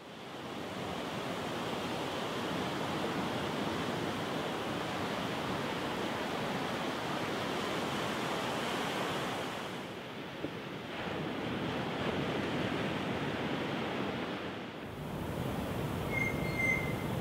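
Ocean surf breaking and washing on a beach: a steady rush of waves that fades in at the start, with slight shifts in level about ten and fifteen seconds in.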